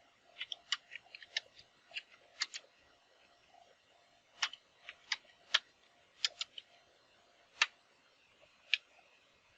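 Keystrokes on a computer keyboard: irregular, faint clicks of typing in quick bursts, with a pause of about a second and a half in the middle.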